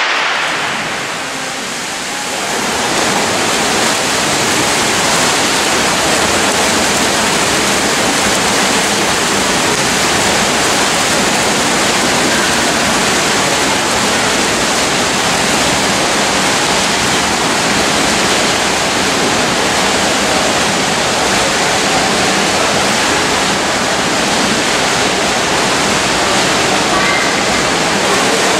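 Many swimmers splashing through a freestyle race in an indoor pool, a dense, steady wash of water noise echoing in the hall. It rises about two seconds in and then holds.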